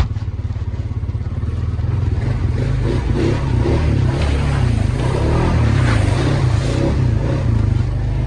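ATV engine running at low speed through deep mud, with its loudness and pitch varying as the throttle is worked, growing louder about two seconds in.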